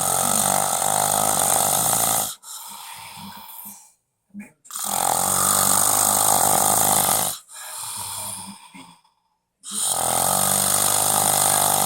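A sleeping man snoring loudly: three long, buzzing snores about five seconds apart, each followed by a quieter breath.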